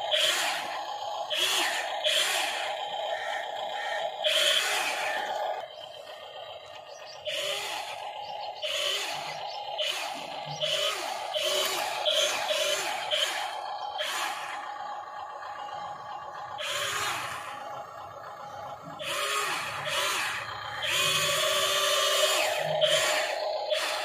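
Toy-scale RC excavator's small electric gear motors whirring in short, irregular bursts as the arm and tracks are worked.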